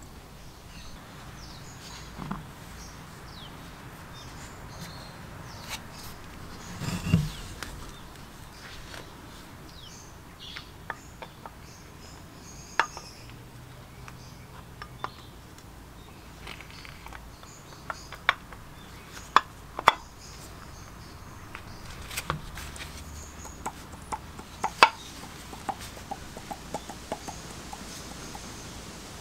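Cast-iron gearbox housing halves and gears of a hand-cranked forge blower clinking and clicking as they are handled and fitted together, with a heavier knock about seven seconds in and a quick run of light ticks near the end.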